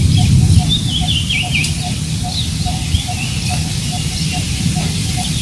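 Wind buffeting the microphone with a low rumble, while small birds chirp in quick, sweeping notes. A faint short note repeats steadily several times a second underneath.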